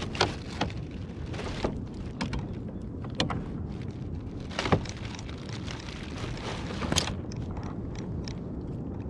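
Steady water and wind noise around a fishing kayak, with scattered sharp knocks and clicks of the fish and gear being handled on the hull, loudest at about half-way and near the end.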